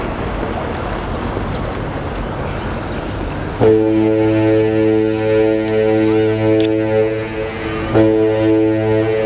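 Steady wind and water noise, then the Great Lakes freighter Manitowoc's deep ship's horn sounds a long blast of about four seconds, followed at once by a second blast near the end.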